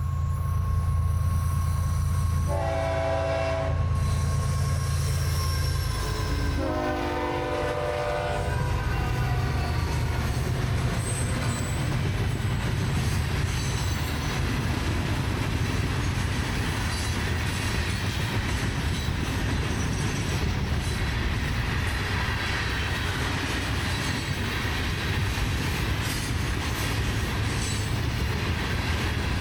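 Florida East Coast Railway freight train passing: the diesel locomotives' engines drone while the air horn sounds two blasts, one about 3 seconds in and a longer one about 7 seconds in. Then the steady rumble and clatter of the freight cars rolling by.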